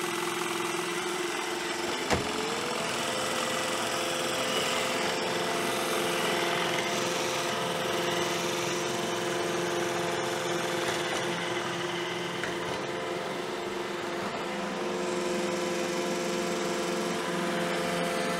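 Robot vacuum cleaner running with a steady motor hum and whine, its pitch rising slightly about two seconds in and then holding.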